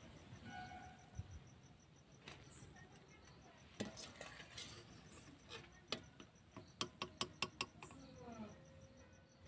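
Metal wire strainer clinking and scraping against a kadai while fried palm fritters are scooped out. There are a few scattered clinks, then a quick run of five or so about seven seconds in.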